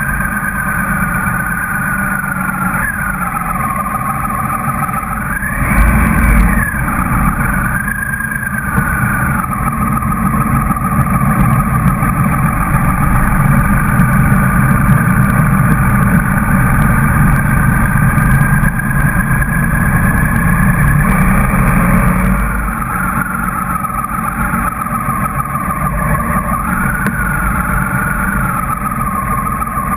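Motorcycle engines running on the move, heard from a riding motorcycle in a group of motorcycles and scooters. The engine pitch rises and falls with changes of throttle, with a brief loud surge about six seconds in and a louder stretch through the middle.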